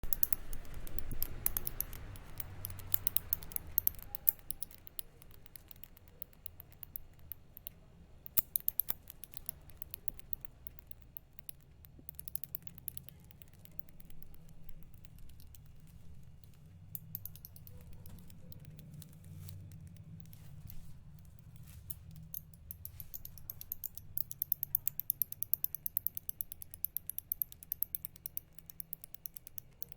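Bats chittering: rapid, high-pitched clicks and squeaks in dense runs, thickest in the first few seconds and again toward the end, over a low steady hum.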